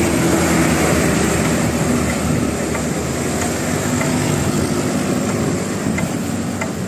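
Bus engine running with steady road and engine noise, getting slightly quieter near the end.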